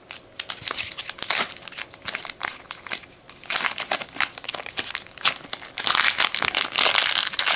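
Crinkly packaging being handled while unpacking trading cards: a run of sharp crackles that grows denser about halfway through and becomes almost continuous near the end.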